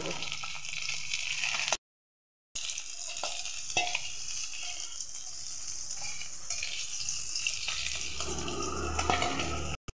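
Bata fish frying in hot mustard oil in a karahi, a steady sizzle, with a few clicks of a spatula against the pan as the fried pieces are lifted out. The sound cuts out completely for a moment about two seconds in and again at the very end.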